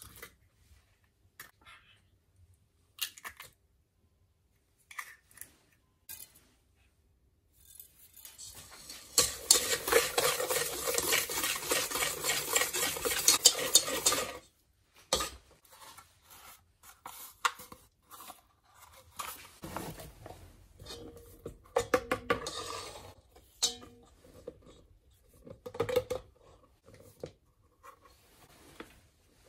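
An egg cracked against a stainless steel mixing bowl with a sharp click, then a wire whisk beating eggs and milk fast in the metal bowl for about six seconds, clattering against the sides. After that come scattered clinks of the whisk on the bowl and handling noises as a packet of flour is opened.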